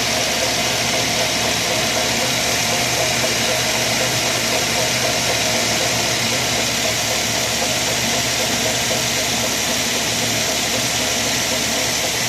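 2003 Mazda 6 1.8 petrol inline-four running steadily, with a rhythmic rattling rotational noise from the alternator area. The owner traced it to a new drive belt 5 mm too short for the alternator drive.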